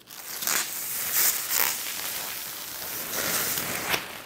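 Clear protective plastic film being peeled off a laser cutter's lid, crinkling and rustling in uneven surges.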